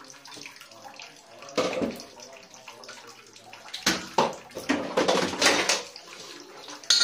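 Irregular bursts of rustling and handling noise close to the microphone, with two louder stretches, about two seconds in and again from about four to six seconds in.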